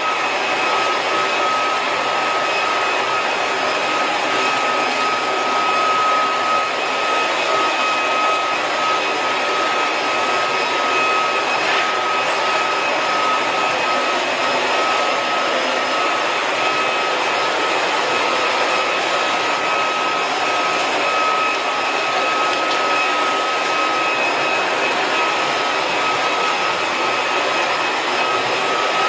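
Battery-powered toy train motor running steadily: a constant high-pitched whine over a steady hiss and rattle.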